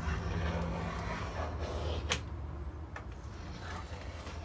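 Small hand plane shaving wooden kerfing strips flush with the sides of a mandolin body: short scraping strokes of the blade on wood, the sharpest about two seconds in, over a steady low hum.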